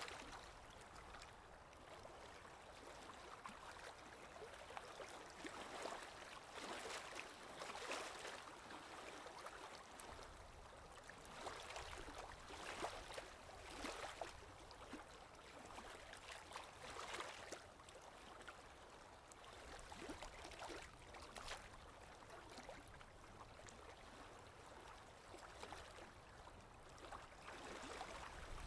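Faint scratching of a drawing tool on paper, in irregular strokes.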